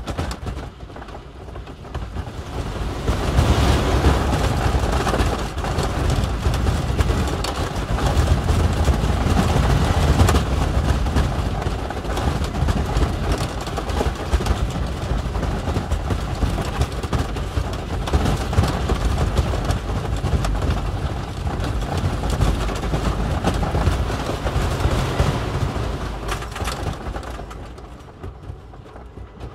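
Roller coaster train on The Voyage, a Gravity Group wooden coaster with PTC cars, running over the wooden track with a steady rumble and rattle; it dies down near the end.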